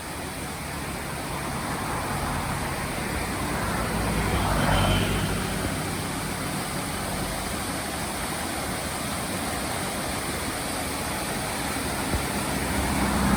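Road traffic running close by: one vehicle swells past about four to five seconds in, and another approaches near the end, over a steady hiss.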